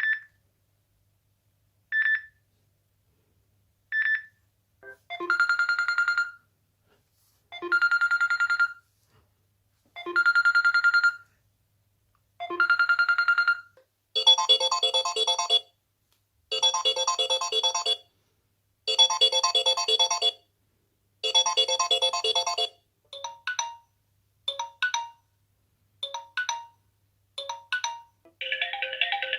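Stock Android phone ringtones played one after another. First three short single beeps two seconds apart, then a buzzy electronic tone repeating about every two and a half seconds, then a repeating melodic chime phrase, and near the end a pattern of quick short blips.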